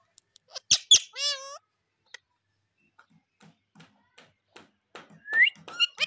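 Indian ringneck parrot: two sharp clicks about a second in, then a short wavering call; after that, soft taps of its beak working a wooden stick about twice a second, with short rising chirps near the end.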